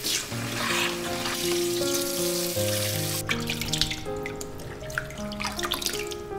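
Water running from a grooming-tub sprayer during a cat's bath, cutting off abruptly about halfway, followed by light wet splashing. Background music with held notes plays throughout.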